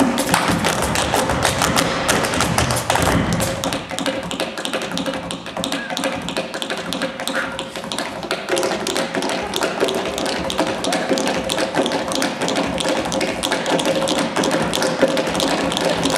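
Tap shoes from a group of tap dancers striking the stage floor in fast, dense rhythms.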